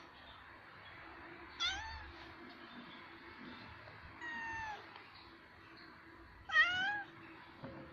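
Male cat meowing three times, short calls about two and a half seconds apart: a tomcat's mating call to draw females.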